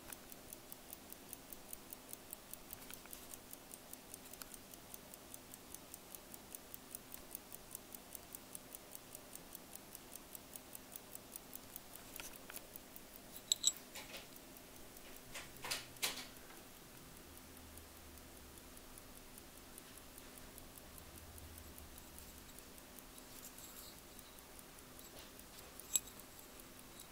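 Mechanical Waltham 17-jewel Swiss pocket watch movement ticking fast and evenly as its balance wheel and escapement run, the ticking fading about halfway through. A few sharp clicks stand out around the middle and near the end.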